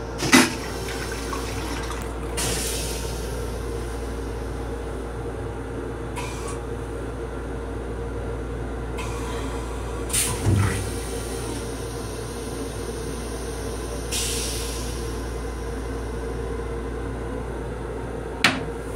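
Metro-North M7 railcar toilet flushing: a sharp clack just after the start, then short bursts of hissing water, over a steady train rumble. A knock about halfway through and another sharp knock near the end as the plastic seat is handled.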